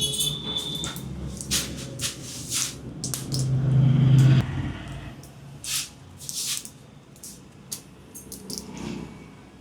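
Packaging of Pudin Hara Ayurvedic capsules being handled: an irregular run of short, crisp crackles and clicks, with a brief louder low rumble about four seconds in.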